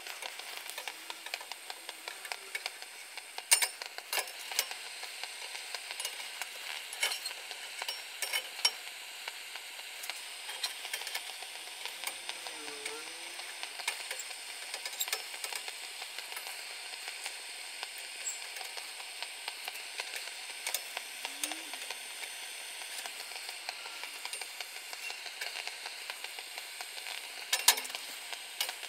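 Gas burner hissing steadily under a bare carbon steel wok being dry-heated to season it, with scattered light metallic clicks throughout and a short cluster of louder clicks near the end.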